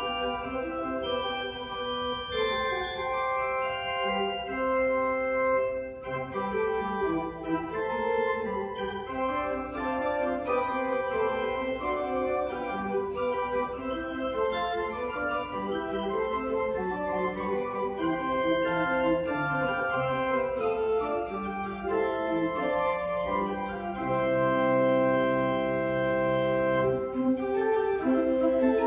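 Organ playing instrumental music: sustained chords under a moving melody, with one long held chord and bass near the end.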